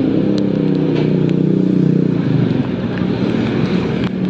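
Motorcycle engine running steadily while riding, with an even hiss of rain and wet-road noise and a few sharp ticks.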